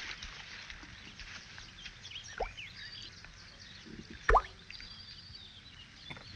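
Small objects plopping into water: a faint plop about two and a half seconds in and a louder one about four seconds in.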